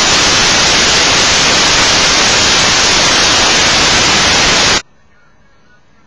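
Loud, steady hiss of static in the recording's audio, which cuts off suddenly near the end and leaves only a faint hiss.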